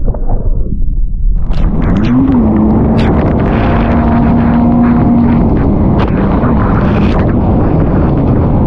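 Jet ski engine running at speed over open-ocean swell, with heavy wind buffeting and water spray rushing over the camera. For the first second or so the sound is a muffled, choppy rumble while spray covers the lens. Then the engine's note comes up steady, rises briefly about two seconds in and drops away near the end.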